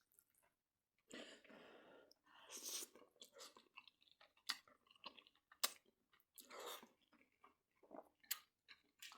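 A person chewing and biting food close to the microphone, in irregular mouthfuls with a few sharp clicks.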